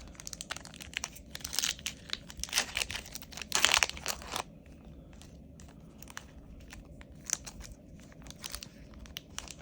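Foil Yu-Gi-Oh booster pack crinkling and tearing as it is opened, loudest about three and a half to four seconds in, then stopping. Faint scattered rustles and ticks of cards being handled follow.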